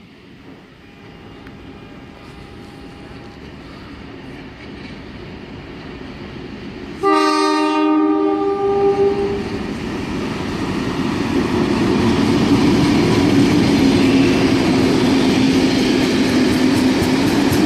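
A train horn sounds once, suddenly and loudly, about seven seconds in, for about two and a half seconds. Then a train's rumble and rail clatter build up and stay loud to the end.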